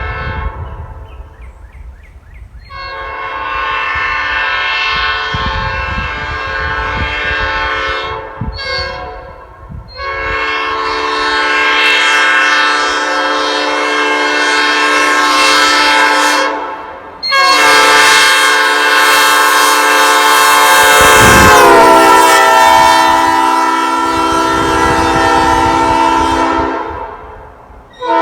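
Nathan Airchime P5A five-chime train horn, ex-Norfolk Southern, whose #4A bell pitches it slightly higher than a standard P5, blown in long blasts: one of about five seconds, a short toot, one of about six seconds, then a blast of about ten seconds whose chord dips and settles a few seconds in.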